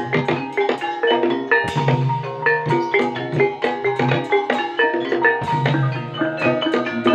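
Live Javanese ebeg accompaniment: struck tuned bars of a gamelan-style ensemble playing a quick, busy run of ringing notes over low hand-drum strokes, in a steady rhythm.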